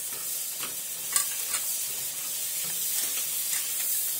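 Baby carrots sizzling in melted butter in a frying pan, with steady hissing, as a spatula stirs them and knocks and scrapes against the pan several times, most sharply about a second in.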